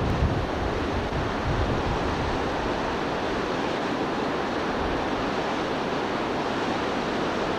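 Duhangan river in flood, muddy water rushing over boulders in a steady, even noise. Wind buffets the microphone with low thumps near the start.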